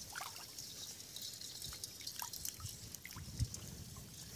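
Shallow muddy water splashing and dripping lightly as hands grope through it and the tangle of water-hyacinth stems, with scattered small clicks and a dull thump about three and a half seconds in.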